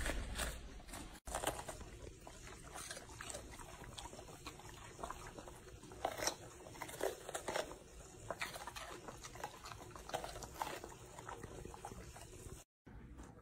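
Two golden retrievers crunching and chewing raw vegetables, first red cabbage, then whole green bell peppers after a brief gap, with irregular crisp bites.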